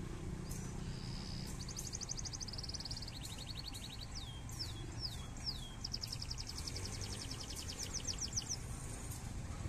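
A bird singing high, rapid trills and a run of quick descending whistles, over the low, steady rumble of an idling diesel locomotive.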